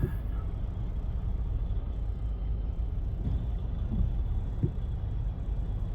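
Steady low road and engine rumble inside a moving car's cabin, with a few faint short knocks between about three and four and a half seconds in.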